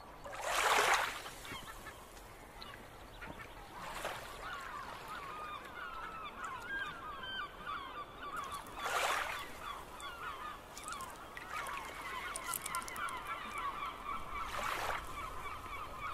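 A flock of birds honking and calling over one another without a break, with a brief rushing swell of noise about a second in, again near four seconds, near nine seconds and near fifteen seconds.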